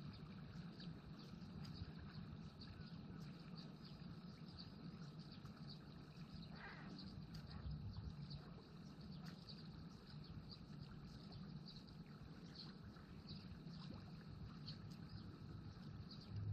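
Faint outdoor ambience: a low steady rumble with scattered faint high ticks, and one brief higher sound about seven seconds in.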